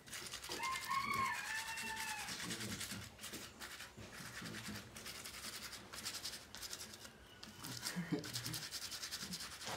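A hand rubbing and smearing paint across paper in repeated scratchy strokes. A brief high-pitched call comes about a second in.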